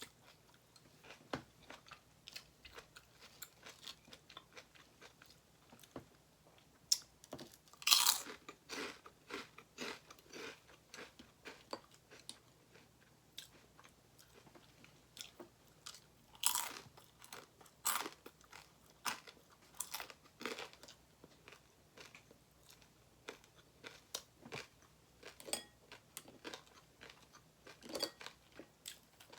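A person eating: chewing and crunching with many small mouth clicks, and louder bursts about eight and sixteen seconds in.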